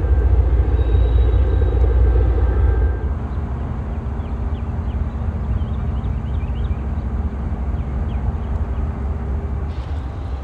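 Wind buffeting the microphone with a heavy low rumble, easing about three seconds in as a steady low mechanical hum comes in and runs until just before the end.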